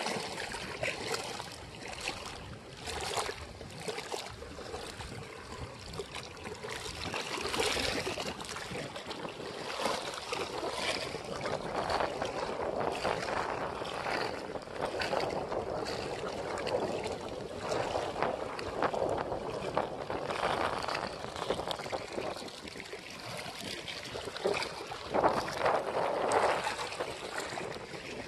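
Wind-driven waves lapping and splashing against the stone riprap at the water's edge, with gusty wind buffeting the microphone; the sound swells and eases irregularly.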